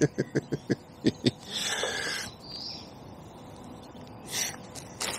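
Songbirds calling, with one short rising whistle about two and a half seconds in, after a quick run of short, sharp sounds in the first second.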